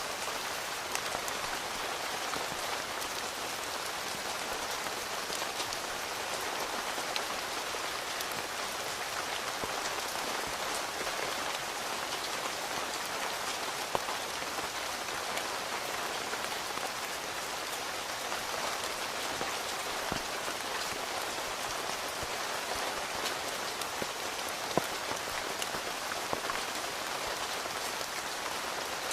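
Steady rain pattering on a tent from inside, with scattered louder individual drops now and then.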